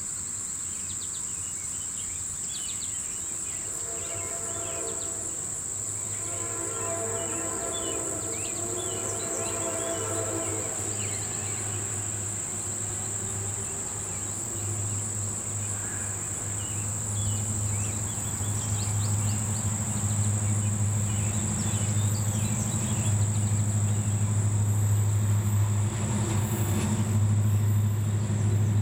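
Wheeling & Lake Erie diesel locomotives approaching: a low engine drone that builds steadily louder over the last twenty seconds as they near. Early on, about four to eleven seconds in, a multi-tone horn chord sounds in the distance, and a steady high insect drone with a few bird chirps runs underneath throughout.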